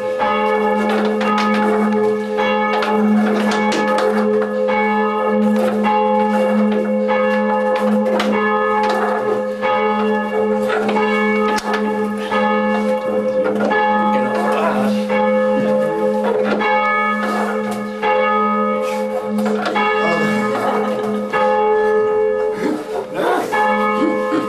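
Church bells rung full-circle by ringers pulling bell ropes, the bells of a small ring striking one after another in a steady repeating rhythm.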